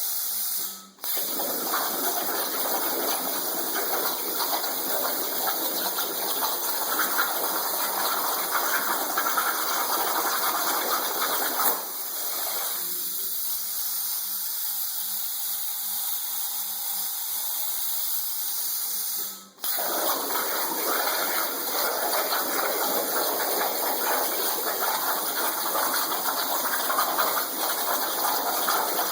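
Plasma torch cutting under water on a CNC water table: a steady hiss with bubbling and spraying. It eases off for several seconds in the middle and cuts out twice for a moment.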